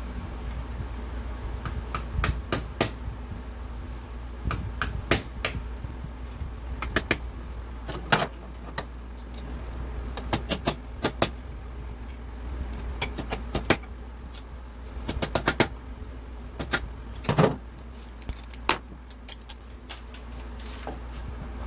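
Metal hand tools and sockets clinking and clanking in irregular sharp knocks, over a steady low hum.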